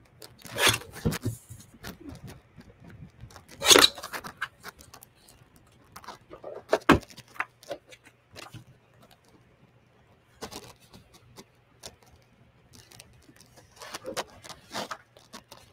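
Photo trimming and paper handling: a paper trimmer's blade slid across a photo, then photo prints and cardstock being picked up, shuffled and laid on the page, a scatter of rustles and light taps with the loudest about a second in and near four and seven seconds.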